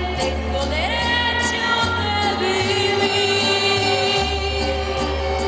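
Mariachi band of violins, trumpets and guitars playing over a bass line that steps between notes, accompanying a woman singing into a microphone. About a second in, a long note slides up and is held.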